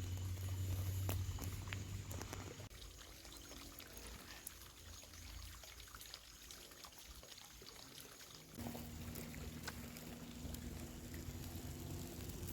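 Liquid pouring and trickling, with scattered small clicks, a low hum early on that stops abruptly, and a new steady low tone from about two-thirds of the way in.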